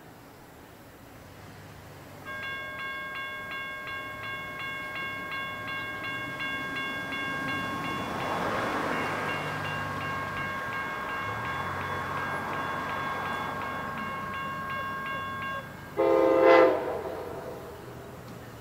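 Grade-crossing warning bell ringing steadily as the crossing gates come down, with a car passing during it. Near the end, one short, loud blast of the horn of the approaching Amtrak P40 diesel locomotive.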